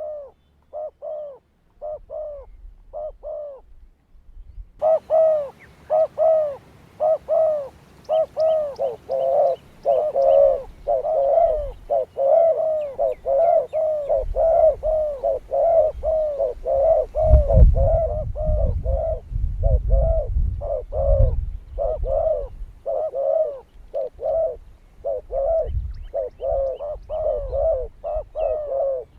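Doves cooing: short arched coos repeated about twice a second, faint at first and much louder from about five seconds in. A low rumble runs underneath through the middle.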